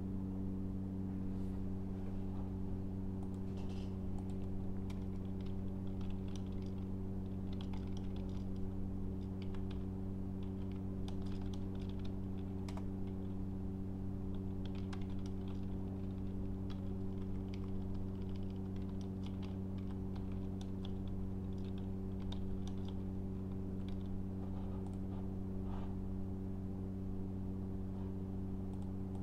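Computer keyboard typing in irregular runs of key clicks, over a steady low electrical hum.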